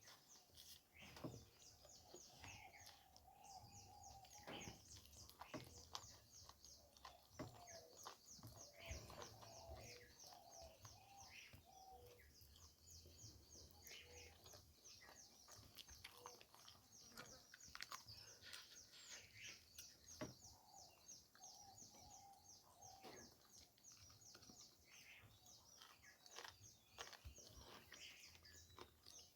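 Faint eating sounds from a mukbang of pork curry and rice: chewing and scattered sharp clicks. A rapid, high-pitched chirping runs steadily in the background, with occasional wavering calls.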